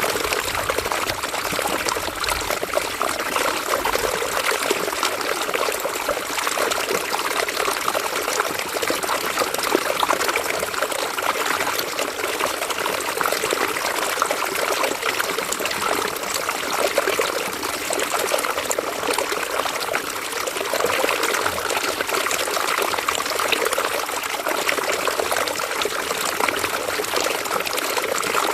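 River water running and trickling over stones, a steady babbling flow with no pauses.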